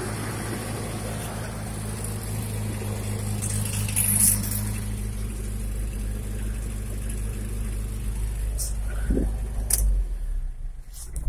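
Nissan 4x4 pickup truck's engine idling steadily with a low, even hum, then stopping near the end, with a few light clicks around it.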